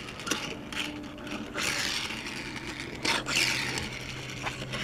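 Hot Wheels Nissan Leaf Nismo RC_02 die-cast toy car, its wheels wetted for drifting, skidding and spinning across a smooth flat board: irregular scraping, rushing bursts as the small plastic wheels slide sideways, over a faint steady hum.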